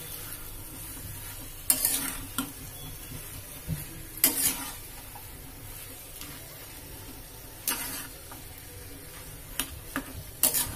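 Metal spatula stirring and scraping a samosa's potato-and-pea filling in a steel pan over the flame, with a low frying sizzle underneath. Sharp scrapes of spatula on pan come every second or two.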